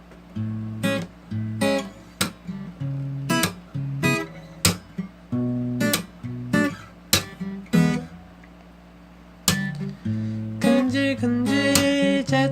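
Acoustic guitar intro: plucked notes and strummed chords. The playing drops off for a moment about eight seconds in, then comes back with fuller strumming.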